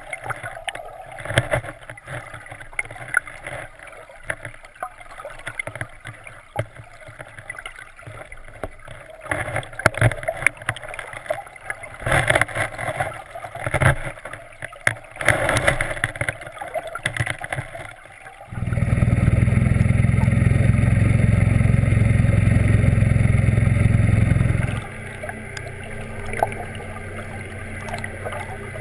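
Water sloshing and irregular knocks on an underwater camera, then, about two-thirds in, a boat motor's steady low drone heard underwater starts suddenly, runs loud for about six seconds and drops to a quieter hum.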